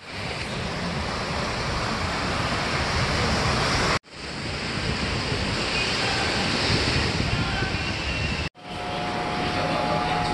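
Sea surf breaking and washing on a sandy beach, with wind on the microphone, broken twice by abrupt cuts. About eight and a half seconds in, it gives way to subway platform noise with a steady hum, a Busan Metro Line 2 train standing at the platform screen doors.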